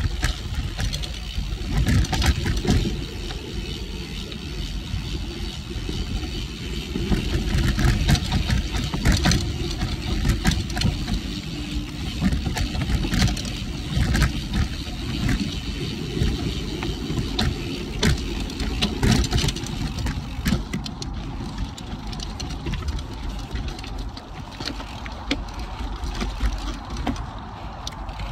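Cervelo Aspero gravel bike on 47 mm tyres riding rocky dirt singletrack. A heavy rumble of wind and vibration on the microphone runs under tyre noise on dirt and rock, with frequent rattles and knocks from the bike over roots and rocks.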